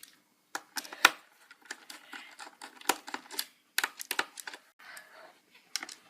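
Irregular sharp clicks and short scrapes of a screwdriver working screws out of an LCD monitor's plastic base and casing.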